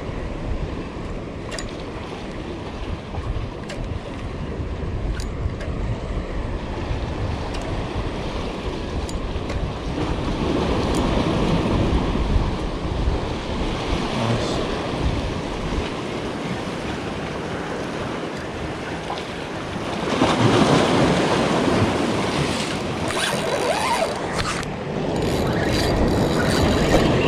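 Sea waves washing and splashing against the boulders of a rocky jetty, with wind buffeting the microphone. The surf swells louder about two-thirds of the way through, and a few sharp clicks come near the end.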